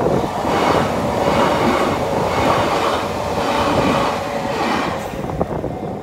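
Kintetsu Minami Osaka Line train running on the rails: loud wheel-on-rail rumbling that swells and fades about once a second, easing off about five seconds in.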